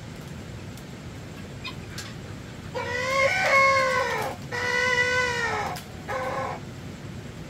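Three drawn-out animal calls from a domestic animal, starting about three seconds in; the first two are long and the last is short.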